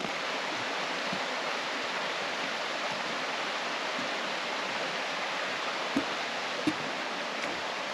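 Steady, even rush of running water, with a couple of faint knocks near the end.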